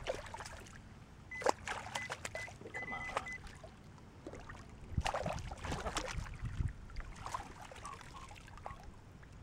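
Hooked catfish splashing and thrashing at the surface beside a kayak while a landing net is worked through the water to scoop it, then water pouring off the net as it is lifted out. A few sharp knocks about a second and a half in, and a heavier splash about five seconds in.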